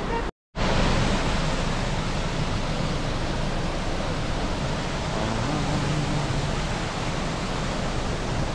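Steady rushing noise, even throughout, with a brief drop to silence just under half a second in.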